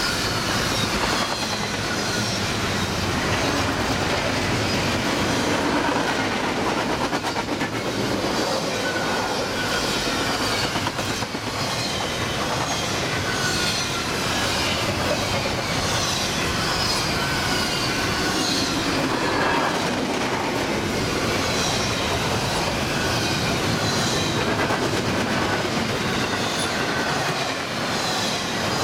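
Double-stack container well cars of a freight train rolling past at speed: a steady rumble and clatter of steel wheels on the rails, with short high squeals coming and going throughout.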